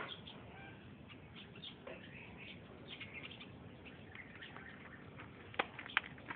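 Birds chirping, many short high chirps over steady background noise, with two sharp taps close together near the end.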